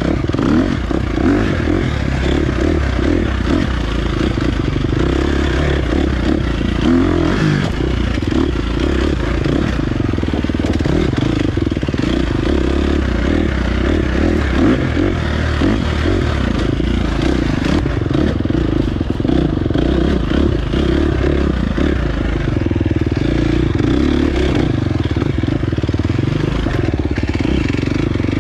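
A 2023 KTM 350 XC-F's single-cylinder four-stroke dirt bike engine running continuously as the bike is ridden, at a steady level with a slightly wavering note.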